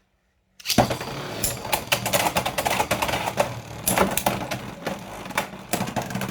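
Beyblade X spinning top (Steel Samurai 4-80T) launched into a plastic stadium about a second in, then spinning with a dense, rapid clicking and rattling as its taper tip and metal-edged blade clatter against the stadium floor and walls.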